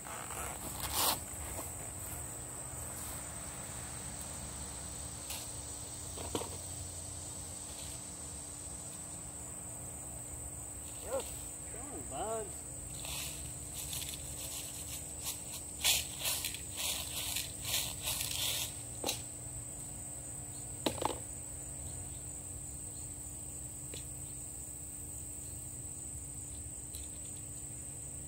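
Steady high-pitched chorus of insects. From about ten to twenty-one seconds in come scattered small clicks and rattles, which are BBs being loaded into the gun's CO2 shells nearby.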